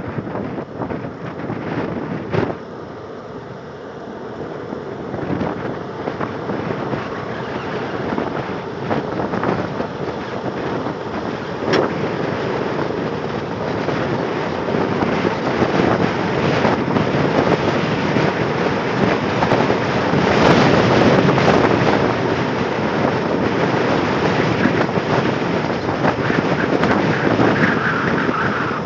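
Wind rushing over the microphone and the rumble of wheels rolling fast on asphalt during a downhill longboard run. It grows louder as speed builds, peaks about two-thirds of the way through, and has a couple of sharp knocks along the way.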